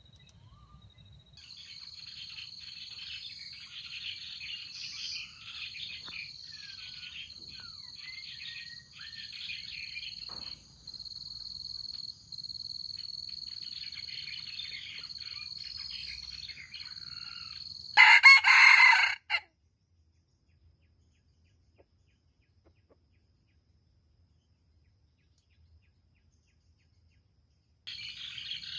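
A junglefowl rooster crows once, loud and short, about two-thirds of the way through, and the sound cuts off abruptly right after. Before the crow, small birds chirp and call over a steady high insect whine.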